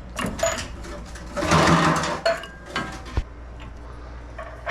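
Old metal vent pipe clanking and scraping as it is worked loose and pulled out: irregular knocks, with a longer scrape about one and a half seconds in and a sharp knock near the end.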